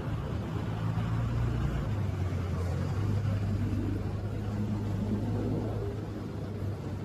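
A steady low engine drone, its pitch dropping slightly about two seconds in.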